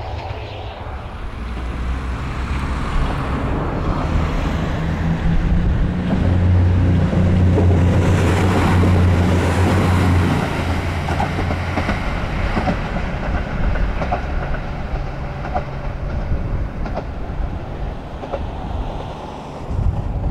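A diesel railcar passes. Its engine's low, steady hum builds to its loudest about six to ten seconds in, then fades while the wheels click over the rail joints.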